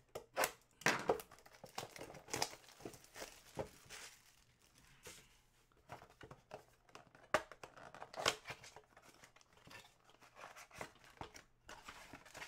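Plastic wrapping crinkling and tearing and cardboard flaps being handled as a Panini Select football blaster box of trading cards is opened by hand, in irregular crackles and snaps, the sharpest a little past the middle.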